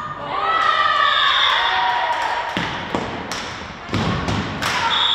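Indoor volleyball rally: high girls' voices shouting, then several sharp thuds of the ball being hit and striking the floor as the point ends, and a referee's whistle blowing near the end.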